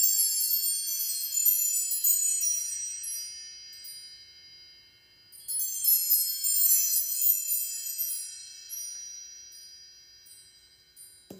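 Metal chimes run by hand into a cascade of many high ringing notes, twice: once at the start and again about five and a half seconds in, each run fading away, with a few single notes after. A Tibetan singing bowl is struck right at the very end, starting a low steady hum.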